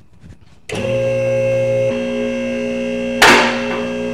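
Two-post car lift's electric hydraulic pump motor starting and running with a steady hum as the car is raised, its tone shifting about a second after it starts, with a sudden loud sharp noise near the end.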